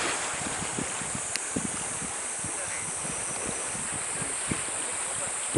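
Wind buffeting the camera microphone in short, irregular low thumps over a steady hiss.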